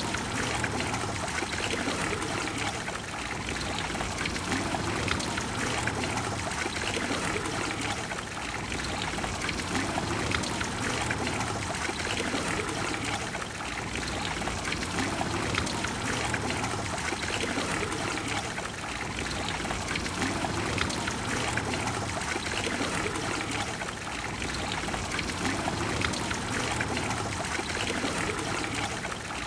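Water of the Trevi Fountain cascading and splashing into its basin: a steady, full rush of falling water that swells and eases a little every five seconds or so.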